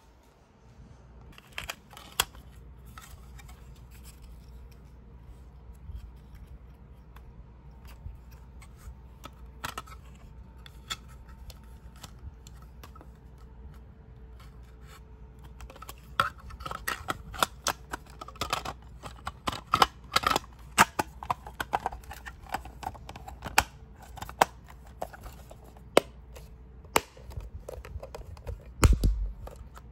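Hard plastic clicks, taps and knocks from a Spectralert Classic fire alarm's plastic housing and parts being handled and pressed by hand. They are sparse at first and come thick and fast in the second half.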